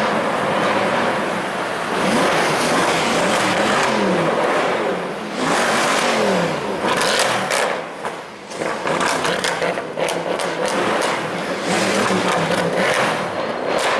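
Mercedes C63 AMG engine revving and accelerating over street traffic noise, its pitch rising and falling several times. Sharp crackles are heard from about seven seconds in.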